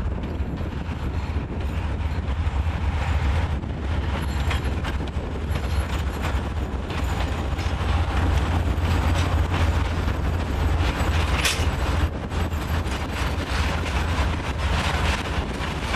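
Two M62 diesel locomotives, each with a two-stroke V12 diesel engine, hauling a freight train of tank cars past: a steady, deep engine drone throughout. As the locomotives go by and the tank cars follow, many short knocks from the wheels on the rails join in and grow denser.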